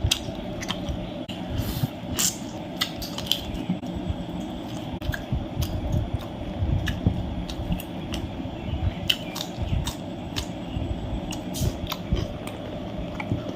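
A person eating spicy chicken curry, chewing and biting with wet mouth smacks and clicks coming irregularly throughout.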